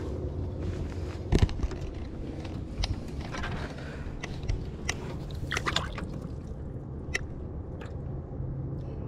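Light water slosh and drips as a bass is lowered by hand into the lake and let go, with scattered clicks and a knock about one and a half seconds in, over a steady low hum.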